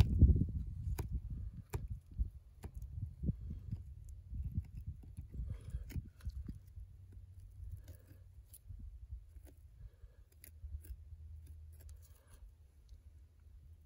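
Knife blade working along a swamp rabbit carcass's backbone: scattered soft clicks and scrapes of the blade through meat and against bone, over a low rumble that is loudest in the first second and then dies down.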